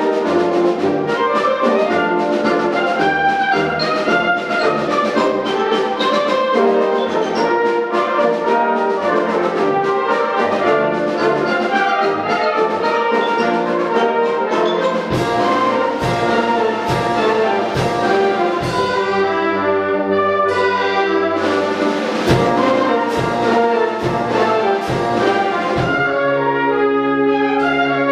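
A wind band of brass, woodwinds and percussion playing a concert piece. About halfway in, heavy accented beats come in at about one every three-quarters of a second, and near the end the band moves to held chords.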